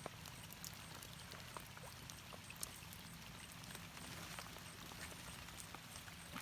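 Faint water trickling and dripping, with many small scattered ticks and drips, and a faint high chirp repeating about three times a second behind it.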